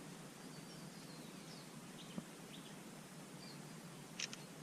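Faint birds chirping over quiet outdoor background noise, with a small click about two seconds in and a sharp double click near the end.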